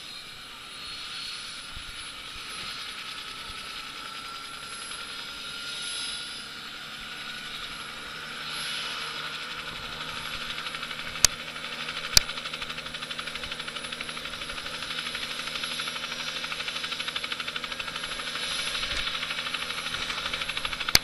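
Light two-bladed turbine helicopter running up on the ground: a turbine whine rising slowly in pitch under a fast rotor beat that grows louder through the second half. Two sharp clicks about halfway through.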